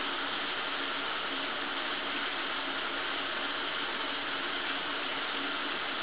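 Shower running: water spraying in a steady, even hiss.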